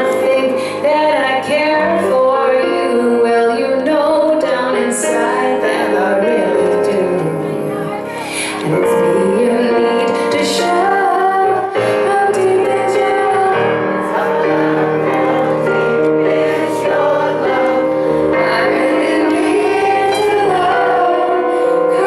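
Live pop music: a woman singing the lead melody into a handheld microphone over steady instrumental accompaniment.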